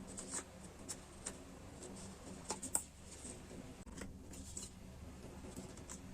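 Small taps, clicks and crinkles of stationery and its packaging being handled, scattered and uneven, with the sharpest crackle a little under three seconds in.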